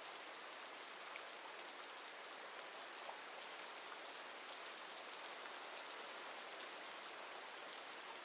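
Steady rain falling on a surface, an even hiss with faint scattered drop ticks.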